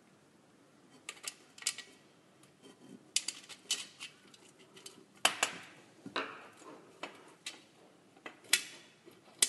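Thin metal mudguard stays and small screws clinking and clanking against a bicycle mudguard as they are fitted by hand with a screwdriver. Scattered sharp clicks in irregular clusters, the loudest about five seconds in.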